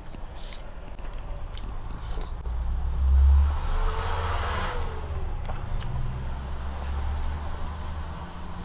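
Eating sounds: chewing and mouth clicks while working through a plate of fermented-durian curry. A swell of rushing noise rises and fades about three to five seconds in. A steady high whine sits underneath.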